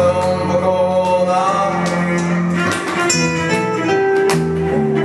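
Live acoustic music: nylon-string guitars strummed and plucked, with a cello holding longer notes underneath.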